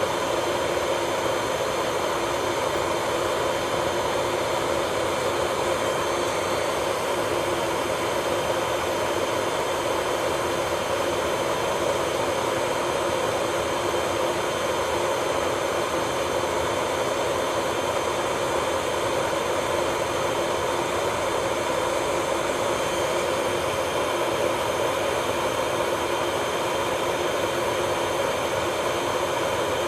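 A small electric motor of nail-salon equipment running at a constant speed, giving a steady whir with several unchanging tones over a hiss.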